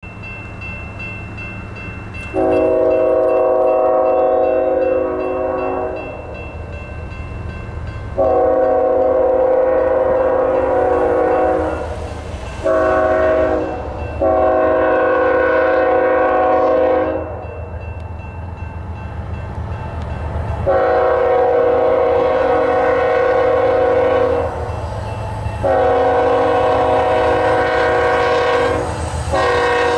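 BNSF freight locomotive's air horn sounding the grade-crossing signal as the train approaches: two long blasts, a short one and a long one, then two more long blasts that start the pattern again. Each blast is a chord of several notes. A low locomotive rumble grows underneath.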